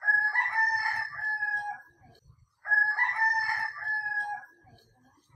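A rooster crowing twice, each crow about two seconds long and ending on a drawn-out held note.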